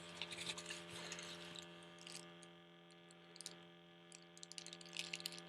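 Faint steady electrical hum with light clicks and rattles of plastic parts being handled.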